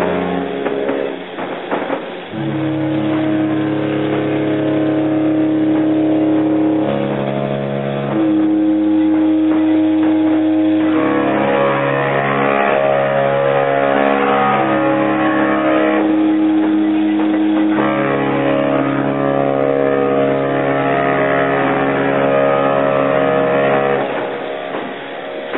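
Cruise ships' horns sounding long, overlapping blasts at different pitches, several horns together forming changing chords, as the ships salute one another.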